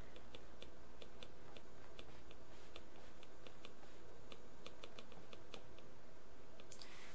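Stylus tip tapping on a tablet screen while handwriting: a string of light, irregular clicks, several a second.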